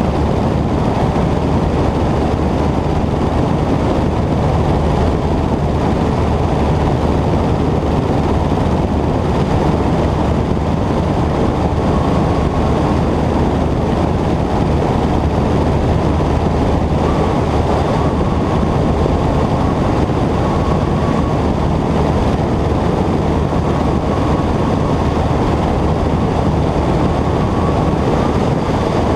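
Cessna 120 light airplane in flight, its piston engine and propeller giving a loud, steady drone.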